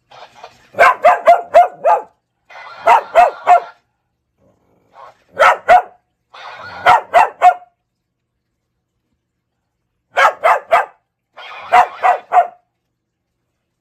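Small shaggy dog barking at a plush snowman toy, in six quick volleys of three to five sharp barks each, with short pauses between volleys.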